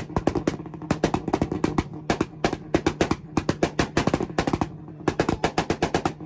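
A car engine held on a two-step launch limiter: a steady engine note under rapid, irregular exhaust pops and bangs, several a second, as the limiter cuts in and out.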